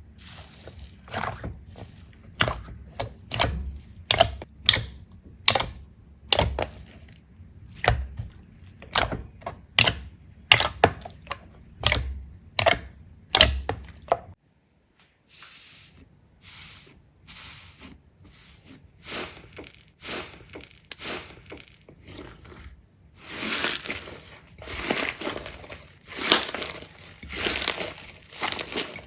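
Slime being squeezed and poked by hand, giving irregular sticky clicks, pops and crackles, with a short pause about halfway.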